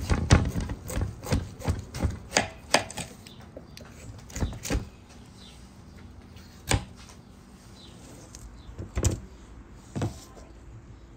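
Kitchen knife cutting through the rind of a half watermelon on a wooden tray: a quick run of crisp cracks and crunches over the first three seconds, then a few single cracks spaced a second or two apart.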